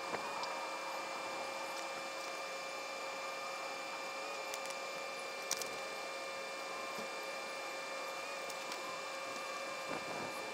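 Quiet, steady electrical hum with several fixed tones over a faint hiss, broken by a few light clicks, one just after the start and one about five and a half seconds in.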